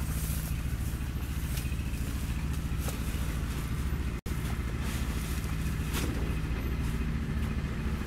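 Maxxi Bimo 102 combine harvester's diesel engine running steadily while the machine stands, with a momentary cut-out about four seconds in.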